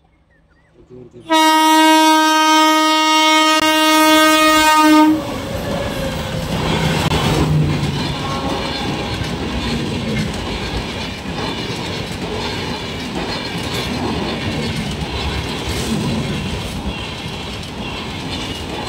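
Train horn sounding one long steady blast of nearly four seconds, starting about a second in, then the steady rush and wheel clatter of the train running past.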